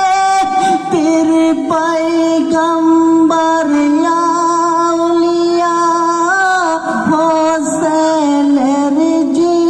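A single voice singing a Bengali marsiya, a mourning elegy for the martyrs of Karbala, in long held notes that bend and waver, with a short dip in pitch about one second in and again near seven seconds.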